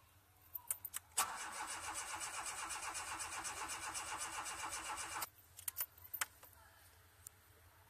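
Tofaş Doğan SLX i.e. engine being cranked by its starter motor for about four seconds with a steady rhythmic churn, without firing. It stops suddenly, with clicks just before and after. This is a crank-no-start caused by a failed crankshaft position sensor.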